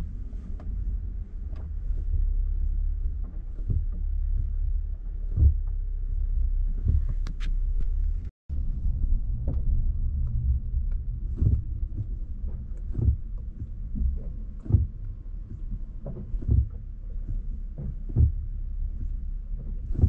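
2022 Nissan Frontier heard from inside the cab while driving: dull low thumps, one every couple of seconds, over the steady rumble of the truck. The knocking comes from the windshield washer fluid reservoir above the front passenger wheel, which thuds even when full.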